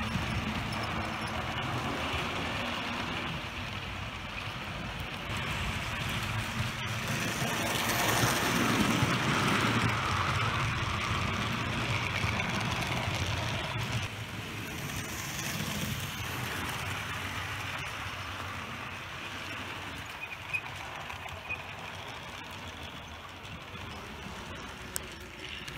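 Bachmann 2-8-2 Mikado model train and its passenger cars running along the track: a steady whirr of motor and rolling wheels. It grows louder about eight seconds in as the cars pass close, then eases off.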